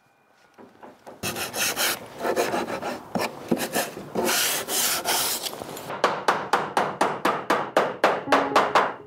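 Rasping, scraping strokes on wood that settle into a steady rhythm of about three strokes a second over the last three seconds.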